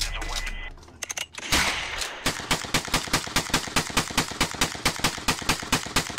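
Gunfire: a few separate shots, then from about two seconds in a rapid, even string of rifle shots, about seven a second, that stops near the end.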